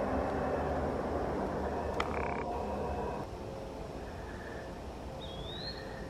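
A dense chorus of frogs croaking that drops away about three seconds in, with one sharp click near two seconds and a short rising-and-falling whistled bird note near the end.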